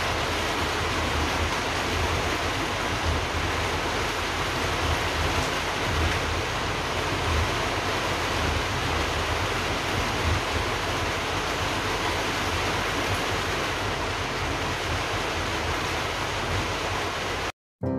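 A steady rushing noise with an uneven low rumble beneath it, which cuts off suddenly just before the end.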